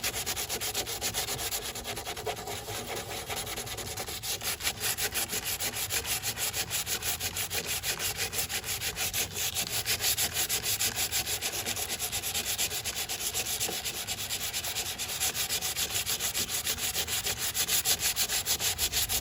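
Sandpaper held by hand scrubbing cured Bondo body filler on a car body panel, in quick, even back-and-forth strokes about four or five a second.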